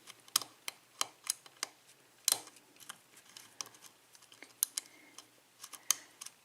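Metal lock pick clicking and scraping against the pin tumblers inside a six-pin lock cylinder, as the pick is forced under the pins to lift them one at a time. Sharp, irregular clicks, a few each second.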